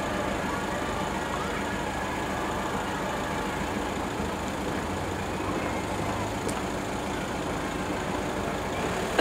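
Aircraft engines droning steadily overhead: a de Havilland Chipmunk's piston engine and an Agusta Bell Sioux helicopter flying by together.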